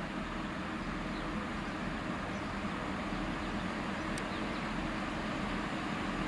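Diesel train running steadily, a continuous even hum and rumble with no change in pitch, and one short sharp click about four seconds in.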